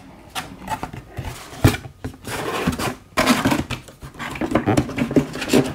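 Handling noise from opening a cardboard helmet box by hand, and from moving a cloth helmet bag: irregular rustling with a few sharp knocks, the loudest about a second and a half and three seconds in.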